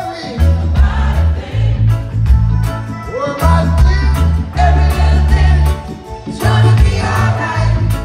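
Live reggae band playing, with a heavy repeating bass line, steady drum beat and lead and backing vocals singing.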